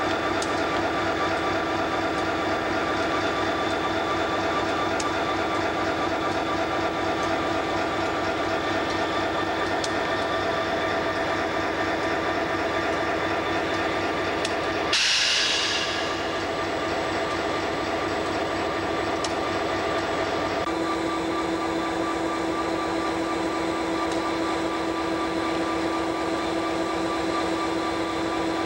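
CSX diesel locomotives, a GP40-2 among them, running steadily as they roll slowly past at close range. About halfway there is a brief loud hiss of air, and later a steady hum comes into the engine sound.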